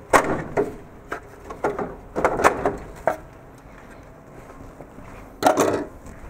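Hard plastic cartridge-slot parts of a tape library knocking and rattling as they are pulled out and handled. There is a run of knocks in the first three seconds, then a louder clatter about five and a half seconds in.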